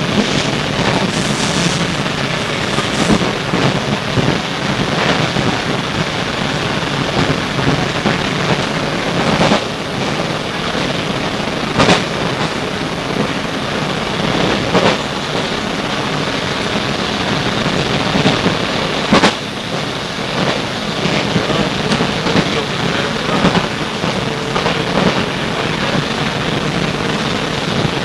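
Inside a Sydney R-set double-deck electric suburban train under way: a steady rumble of the wheels and running gear on the track, broken by a few sharp knocks.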